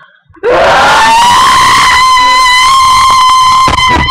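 A loud, distorted held note from a voice, sliding up sharply at the start and then held steady for about three and a half seconds, a mock trumpet or horn blast.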